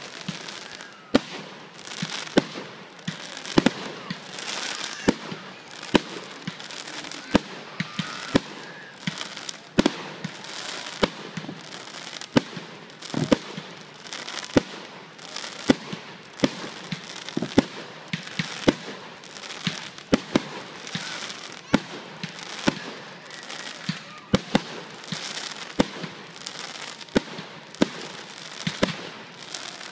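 Aerial fireworks shells bursting in a steady run of sharp bangs, about one a second, over a constant hiss.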